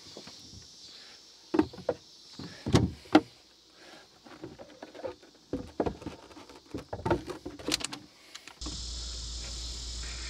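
Irregular knocks and clicks from battery charger leads being hooked up to boat battery terminals by hand, the loudest about three seconds in. Near the end, a steady low hum with hiss starts abruptly.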